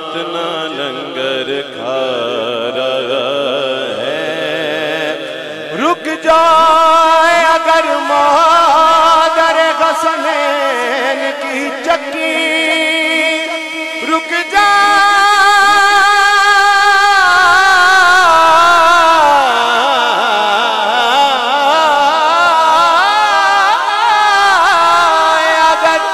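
A male naat reciter sings through a microphone and sound system, holding long, ornamented unaccompanied notes without clear words. For the first six seconds a lower steady drone sits under the voice; after that the singing rises and gets louder.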